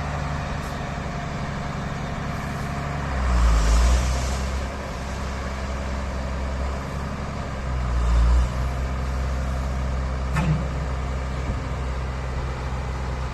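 Diesel engine of a JCB backhoe loader running steadily, its note dipping and swelling louder twice as it takes load, with a short click near the end.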